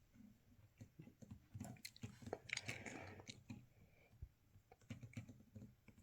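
Faint, irregular small clicks and ticks of a small screwdriver taking the screws out of a Galaxy Note 5 phone, with a brief scratchy scrape about two and a half seconds in.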